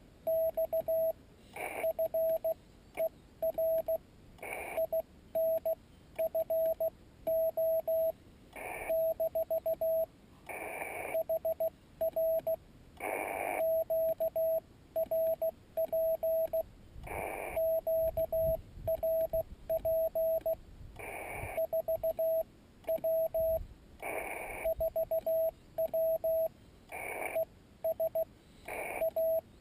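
Morse code (CW) from a Yaesu FT-817ND transceiver: a steady mid-pitched tone keyed on and off in dots and dashes. Short bursts of hiss come and go between the characters.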